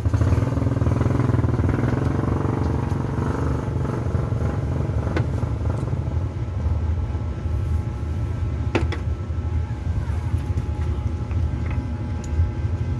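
A motor vehicle engine running steadily with a low rumble, with a few light clicks about five and nine seconds in.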